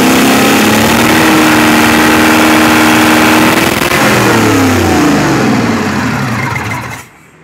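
A large rebuilt V-type marine diesel engine running at raised speed, held steady, then winding down as it is shut off, and stopping about seven seconds in.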